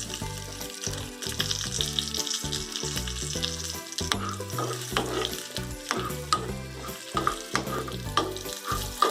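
Tempering sizzling in hot ghee in a small pan: mustard seeds, asafoetida, curry leaves and a dried red chilli frying, a steady high sizzle with scattered sharp crackles.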